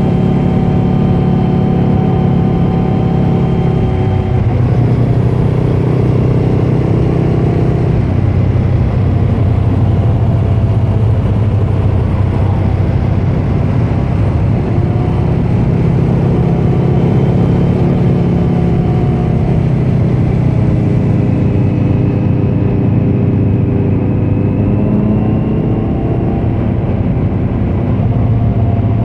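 2018 Kawasaki Z900's inline-four engine running under way through a Leo Vince muffler on stock headers with the dB killer removed. The engine note rises and falls with throttle and gear changes, dropping about four seconds in, sinking lower around twenty seconds in, then climbing again near the end.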